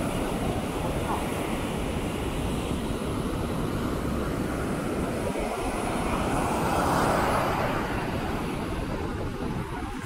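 Surf breaking and washing up a sandy beach: a steady rush of waves over a low rumble, swelling about seven seconds in.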